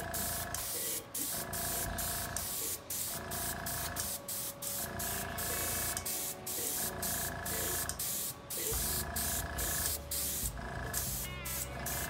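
Airbrush spraying paint with a steady hiss that breaks off briefly many times.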